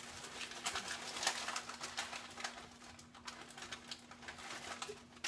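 Plastic bag crinkling and rustling in short, irregular crackles as it is handled, over a faint steady low hum.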